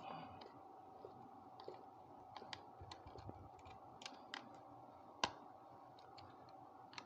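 Faint, scattered small clicks and ticks of a screwdriver gently tightening a terminal screw on a 13 A electrical socket, with one sharper click about five seconds in. A faint steady hum runs underneath.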